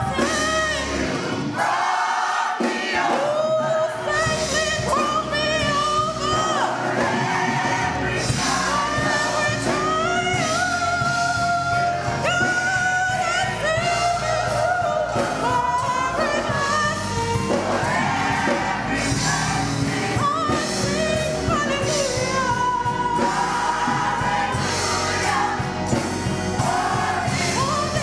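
Gospel song: voices singing a melody over steady instrumental accompaniment.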